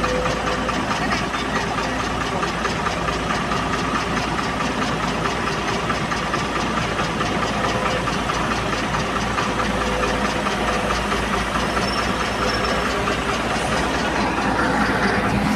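Heavy diesel engine running steadily at an even speed, with a fast, regular chugging.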